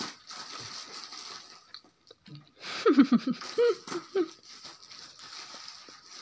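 Plastic packaging and bubble wrap rustling and crinkling as a parcel is handled and opened. About three seconds in, a toddler makes a few short wordless vocal sounds, the loudest part.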